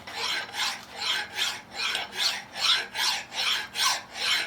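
Hand file rasping across a workpiece in a vise, putting a radius on its edge with steady rocking strokes, about two and a half strokes a second.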